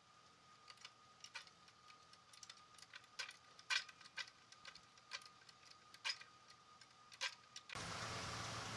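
Faint, irregular sharp clicks and ticks over a thin, steady high tone. Near the end there is an abrupt switch to a louder, steady running noise with a low hum, like an idling engine.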